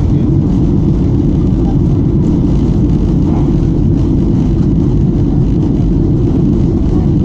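Steady cabin noise heard from a window seat of a Boeing 737-800 in flight: a loud, even rumble of the engines and the air rushing past the fuselage, deepest and strongest in the low range.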